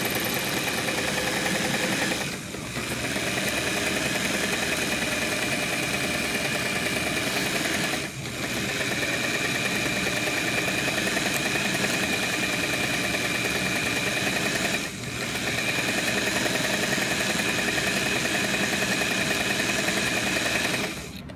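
Singer 237 sewing machine running steadily at speed with its bobbin winder engaged, winding a bobbin. It eases off briefly three times and stops near the end.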